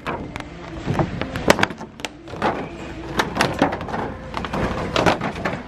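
Handling noise from stiff plastic paint-tray liners being taken off a shelf and set into a wire shopping cart: irregular sharp plastic clicks and knocks, several a second at times, over a low steady background hum.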